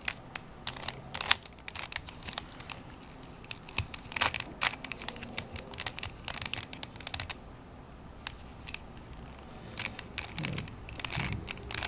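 Plastic clicks and clacks of a Rubik's Cube Twist puzzle being turned by hand, its layers snapping into place in irregular runs of quick turns.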